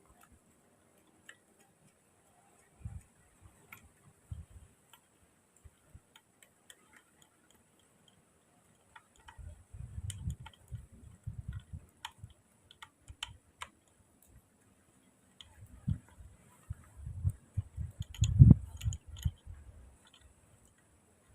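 Hand tools and metal parts being handled while a grass-cutter engine is taken apart: scattered light metallic clicks and ticks, with two stretches of low knocking and handling thumps, the loudest knock near the end.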